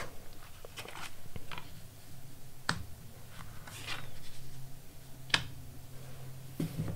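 Tarot cards being drawn off the deck and laid on the table: soft sliding and shuffling of the card stock, with two sharp card clicks about two and a half seconds apart as cards are snapped down.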